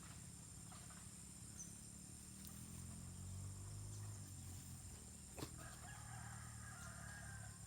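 A rooster crowing once, one long held call in the second half, over a steady low hum.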